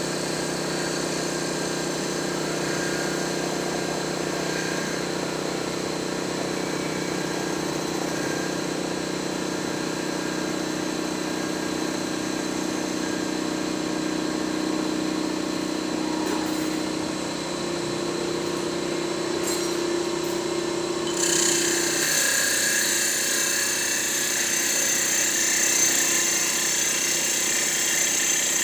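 Mustang MT5025 mini CNC wood lathe running with a steady motor hum. About 21 seconds in, the cutting tool bites into the spinning wood and adds a loud hissing, scraping cut.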